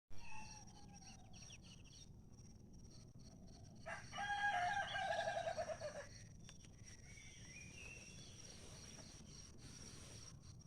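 A rooster crowing once, about four seconds in, a single call lasting about two seconds. A steady high-pitched tone and a few faint bird chirps run underneath.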